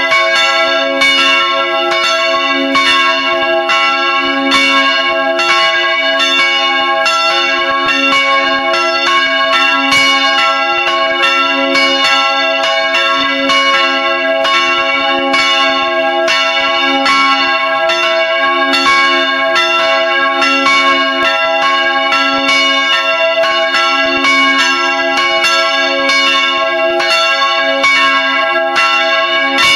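Church bells ringing together in a full peal, heard close up inside the bell tower. Repeated clapper strikes, several a second, overlap with a continuous ringing hum.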